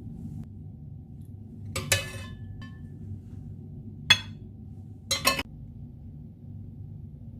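A serving utensil clinking against a plate three times while food is plated, the last a quick double clink, each with a short ring, over a steady low hum.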